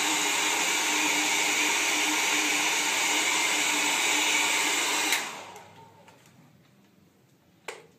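Handheld hair dryer blowing steadily through a plastic bottle fitted over its nozzle, then switched off about five seconds in, its motor winding down to quiet. A short knock near the end.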